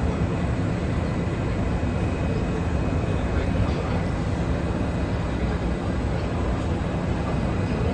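Steady low rumble and hum inside a Kawasaki & CRRC Sifang CT251 metro train, with faint high steady tones and no distinct events.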